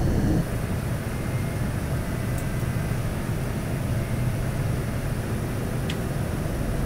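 Steady rumble and rush of a Boeing 787-10 airliner heard from inside the cabin, the engines and airflow running evenly. It eases slightly about half a second in, and a couple of faint clicks sound over it.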